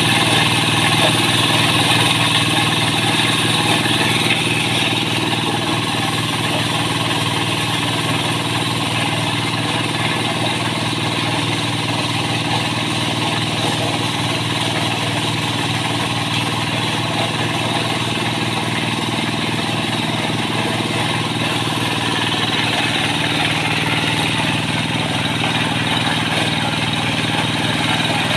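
Corn sheller at work, driven by a Kubota single-cylinder diesel engine running steadily while corn cobs are fed into its hopper. The engine's even beat is heard under a dense, continuous hiss of the shelling drum, a little louder in the first few seconds.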